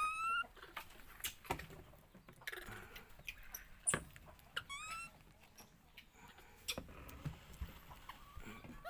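A hungry baby macaque squealing: one short rising high-pitched cry at the start and a quick run of several more about five seconds in. Faint taps and knocks on wooden planks in between.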